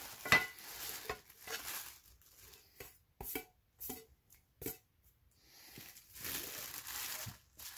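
Clear plastic wrapping rustling and crinkling as it is pulled off nested camp pans, with a few short sharp knocks and clicks between the rustles.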